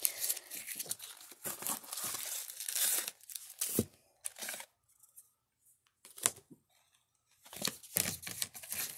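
Paper packaging rustling, crinkling and tearing as a just-opened mail-order jewelry box is unpacked. The rustling is steady for about the first four seconds, then gives way to a few sharp taps and handling sounds, with a short burst of them near the end.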